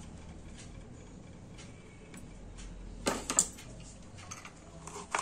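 Cumin seeds tipped from a spoon into a plastic mixer-grinder jar already holding coriander seeds: a short cluster of clicks and rattles about three seconds in, and another click near the end, over a low room hum.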